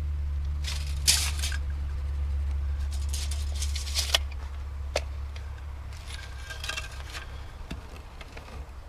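A low rumble that slowly fades, with three short bursts of scraping and a few sharp clicks or knocks.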